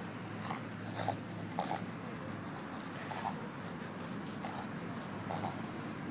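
Pug reverse sneezing: a run of about six short, sharp inward breaths through the nose at irregular spacing, roughly half a second to a second and a half apart. The sign of a spasm of the throat and soft palate, common in flat-faced breeds.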